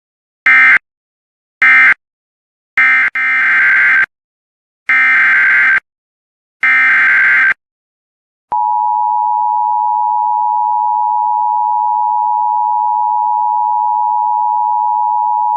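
Emergency Alert System SAME data bursts: three short bursts, the end-of-message code closing the previous alert, then three longer header bursts announcing the next warning. About eight and a half seconds in, a long steady single-pitch attention tone begins.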